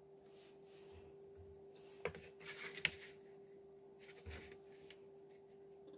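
Thin wood veneer sheets and fibreboard templates being handled and slid over one another on a workbench: a faint papery rustle with a few sharp taps in the middle, over a faint steady hum.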